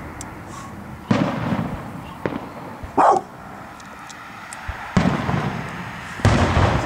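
Aerial firework shells bursting: sharp booms with a rumbling tail about a second in, near five seconds and again just after six, with a weaker crack in between. A short, loud call, like a dog's bark or a shout, stands out about three seconds in.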